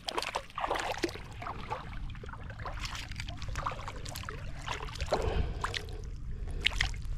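River water running steadily, with scattered small splashes and knocks.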